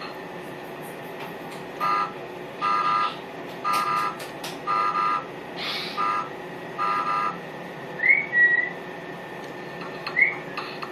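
A run of six short, evenly spaced electronic-sounding beeps, about one a second, followed by two brief rising chirps, over a steady hiss.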